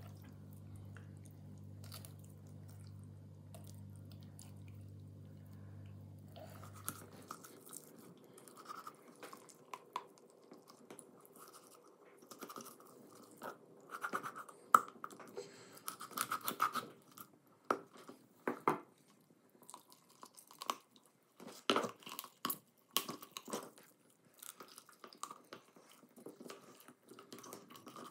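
Large kitchen knife cutting a raw duck in half on a wooden board: irregular crunching and snapping as the blade works through skin, joints and bone. The crunches are sparse at first and loudest and most frequent in the second half.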